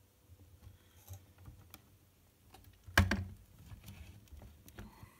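Handling noise: light scattered clicks and taps, with one sharp knock about three seconds in.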